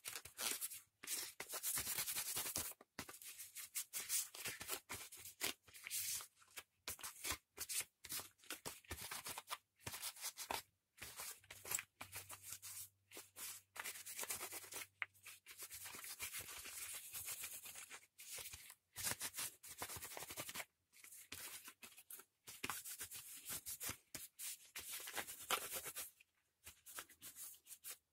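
A cloth rag wiping and rubbing over a petrol brush cutter's engine parts in gloved hands, in irregular scrubbing strokes broken by short pauses.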